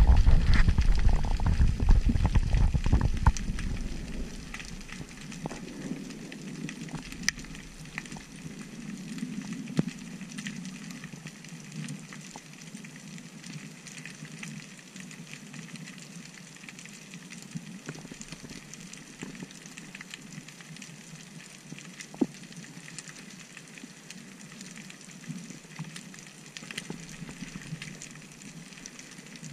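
Underwater ambience through a camera housing: a loud low rumble for the first few seconds, then a steady crackle with scattered sharp clicks.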